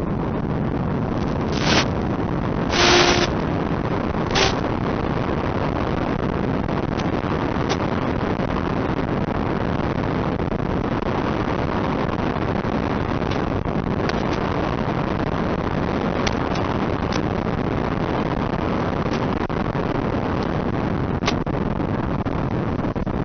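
Steady rushing noise on the RC P-38 model plane's FPV feed in flight, with a few short, louder crackles in the first five seconds.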